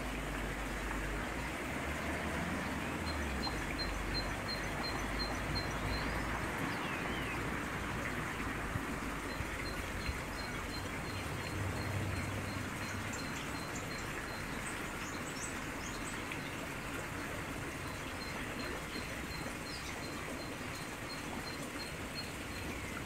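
Steady hiss under a faint, high chirping repeated about three times a second, stopping and starting; a few quicker, higher chirps come between about 13 and 16 seconds in.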